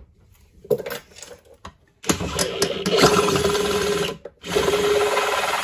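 DeWalt cordless drill running under load with a large bit, boring through the metal drain strainer of a kitchen sink. A steady motor whine runs for about two seconds, stops briefly, then starts again.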